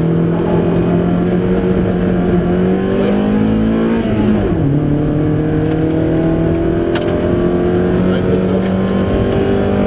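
VW Golf III 16V rally car's four-cylinder 16-valve engine heard from inside the cabin, pulling under load with its pitch climbing. About four seconds in the pitch drops sharply with an upshift, then climbs again; there is one sharp click about seven seconds in.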